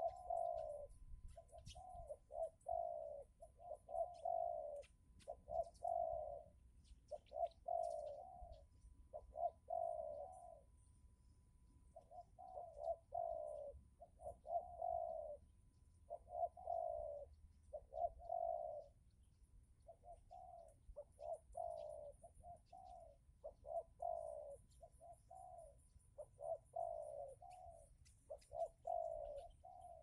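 Spotted dove (tekukur) cooing over and over: short coo notes in phrases of several, separated by brief pauses.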